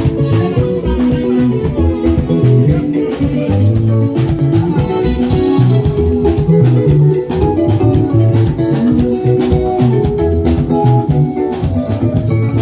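A live band playing a Congolese rumba groove: picked electric guitar lines over bass guitar and a steady drum beat.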